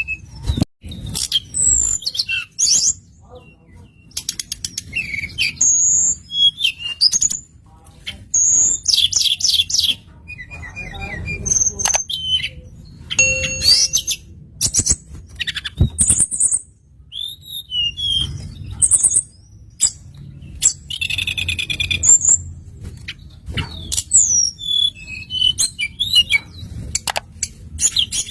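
Recorded flowerpecker (tledekan) calls used as a lure: quick high chirps, rapid trills and short whistled glides, packed close together. The same sequence repeats about halfway through.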